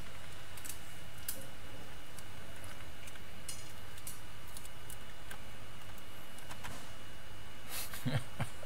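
Scattered small clicks and light rattles from hands handling the opened PlayStation 4 slim's disc drive mechanism, over a steady background hiss and hum with a faint high whine.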